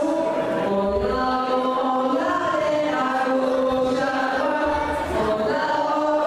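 Voices singing a melody in held notes that step from pitch to pitch.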